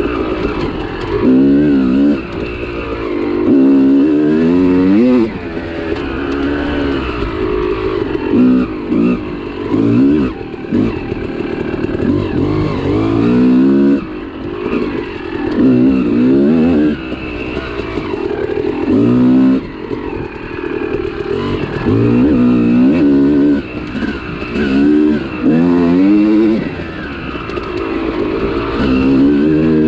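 2001 Yamaha YZ250 two-stroke single-cylinder dirt bike engine revving up and dropping back again and again as it is ridden, its pitch climbing with each burst of throttle and falling when the throttle is shut.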